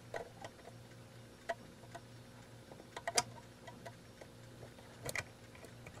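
Small screwdriver tightening tiny screws into the metal back plate of an external hard drive enclosure: scattered faint clicks and ticks, the sharpest about three seconds in and a close pair about five seconds in.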